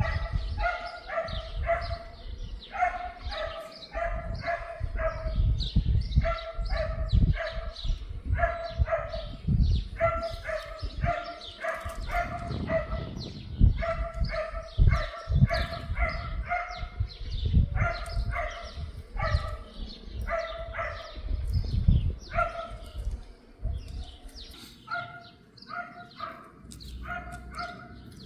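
A dog barking over and over in quick runs of short yaps, about three a second, thinning out near the end, with a low rumbling noise underneath.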